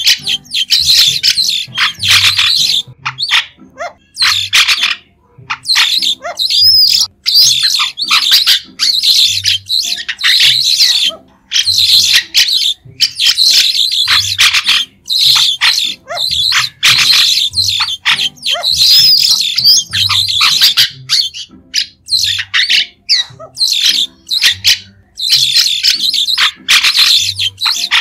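White-shouldered starlings calling: short, shrill calls in quick chattering runs, broken by a few brief pauses.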